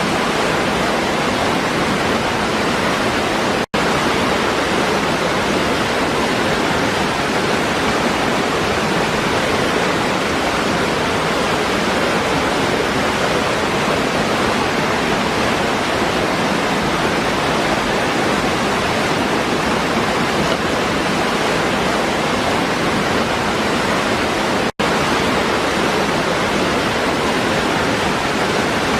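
Waterfall pouring over rocks: a steady, even rush of water, broken twice by a split-second dropout, about four seconds in and near the end.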